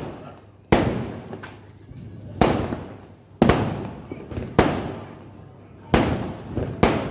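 Firecrackers going off: about six sharp bangs a second or so apart, each trailing off in a crackling echo.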